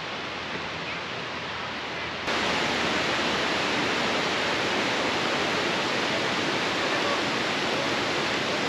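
Steady rushing of Bridal Veil Falls, the 60-metre waterfall, heard through the forest; it jumps louder about two seconds in.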